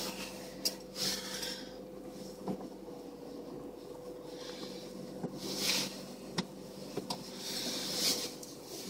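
Steady hum of a van engine idling, heard from inside the cab, with rustling and a few sharp clicks as things are handled.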